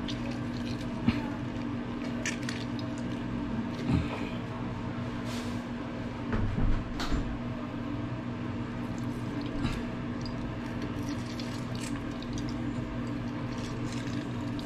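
A lemon squeezed by hand over a bowl: juice dripping and squishing of the fruit, with a few light clicks and knocks. A steady low hum runs underneath.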